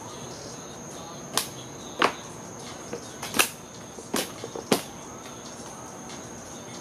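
Wooden pallet boards being pried and broken apart: about five sharp wooden cracks and knocks, with smaller clatters between them, over a steady high chirring of crickets.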